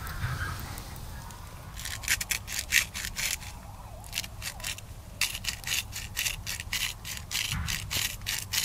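Small hand-twisted spice grinder grinding over a cooking pot: quick rhythmic crunching strokes, starting about two seconds in, pausing briefly, then running on.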